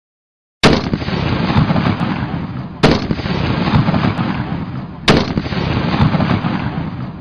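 Barrett M107 .50-calibre semi-automatic sniper rifle firing three shots a little over two seconds apart, each crack followed by a long rolling echo that fades until the next shot.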